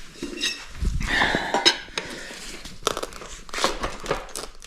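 Michelin Starcross Medium dirt bike tyre with a mousse insert being worked around the rim by hand to seat the bead: irregular rubber creaking and scraping with small knocks.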